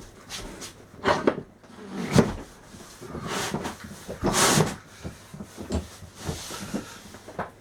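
Irregular knocks, bumps and scraping as pieces of an old office chair are handled and shifted, with several sharp knocks and a longer rustling scrape about four and a half seconds in.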